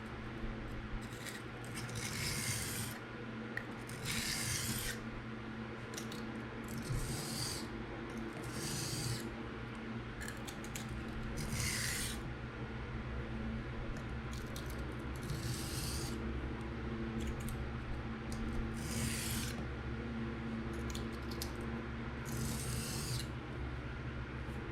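A steel knife blade scraping across a coarse diamond sharpening stone in a series of rasping edge-trailing strokes, each a second or two apart. The strokes fatigue and strip off the burr left by sharpening.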